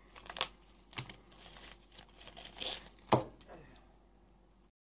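Wrapper of a smoked and basted beef hide dog chew crinkling and tearing as it is pulled open by hand, in a few short, sharp rustles that die down near the end.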